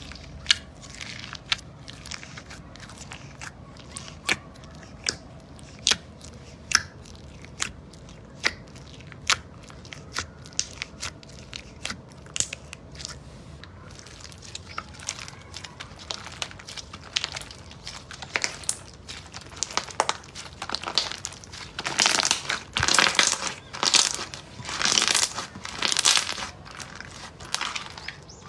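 Glossy slime being squeezed and pressed by hand, giving sharp single clicks and air-bubble pops about one a second, then denser, louder crackling bursts from about halfway through.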